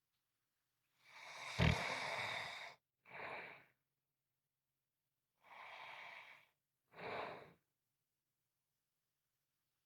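A person snoring in sleep, hours after gallbladder surgery: two breaths, each a longer snoring sound followed by a shorter one. The first has a sharp low rattle about one and a half seconds in, and the second breath is fainter.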